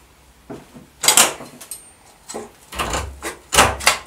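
Thin bent-wood sieve rims and metal shears handled on a metal-topped workbench: a string of sharp knocks, clatters and scrapes, loudest about a second in and again in the last second.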